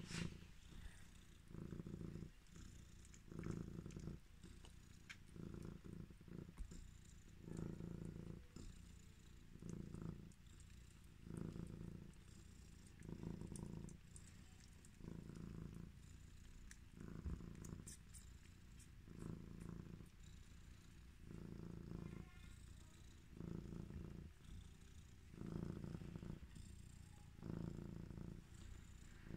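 Bengal cat purring softly and steadily while nursing her week-old kittens, the purr swelling and easing with each breath about every two seconds.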